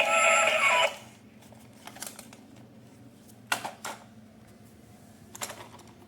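Electronic music with synthetic singing cuts off about a second in; after that a few scattered sharp clicks and clatters, the loudest about halfway through.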